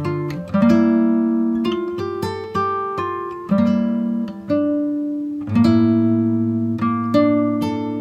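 Background music on acoustic guitar: plucked notes and strummed chords, each struck and left to ring out.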